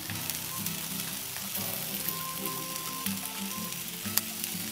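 Food sizzling on a hot Weber kettle grill, an even hiss with a few faint ticks, under background music with held notes.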